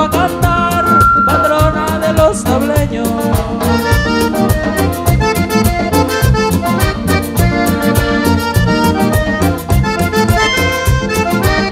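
Live Panamanian música típica: a button accordion plays an instrumental passage over bass and percussion that keep a fast, steady beat.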